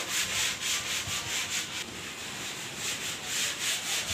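Steady rhythmic scraping, about five strokes a second.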